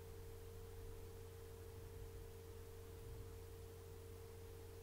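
Quiet room tone: a faint, steady single pure tone with a low hum beneath it, unchanging throughout.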